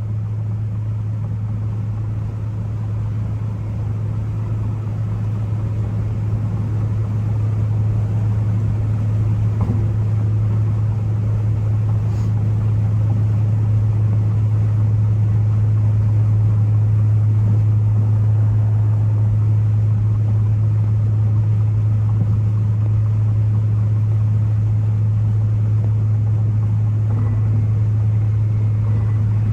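Turbocharged Ford Focus ST driving at a steady speed: a constant low engine and exhaust drone that grows a little louder several seconds in.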